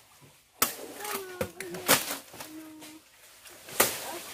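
Nipa palm fronds being hacked with a blade: three sharp chopping strikes, one every second or two.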